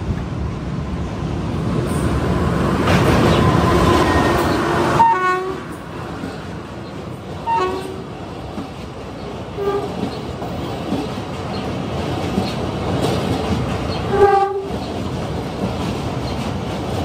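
Mumbai–Ahmedabad Shatabdi Express, hauled by an electric locomotive, passing close by at speed. Its rumble builds over the first few seconds while the horn sounds as it nears, with a few short toots after. Then the coaches roll past with a steady clickety-clack of wheels on the rails.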